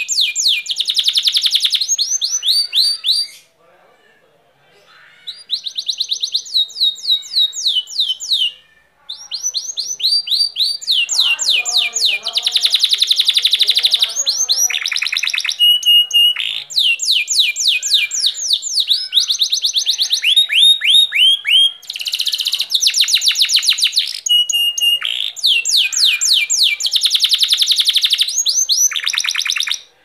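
Domestic canary singing long phrases of rapid trills and rolling repeated notes, broken by short pauses about four and nine seconds in.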